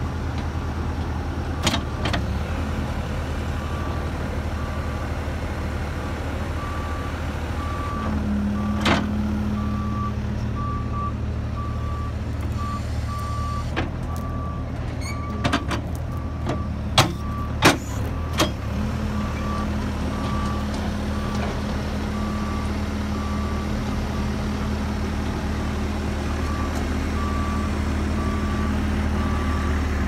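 Bobcat skid steer's engine running steadily at idle, with a faint, evenly repeating high beep over it. A steady hum joins in at times, and there are a few sharp knocks around the middle.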